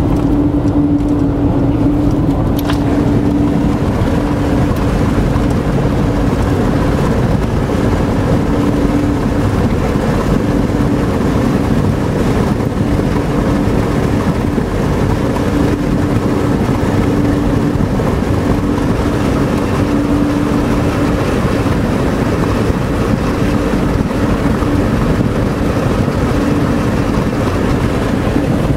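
Steady road noise of a vehicle driving at speed, heard from inside the cabin: a constant rumble of engine and tyres, with a steady hum that fades out and back in several times.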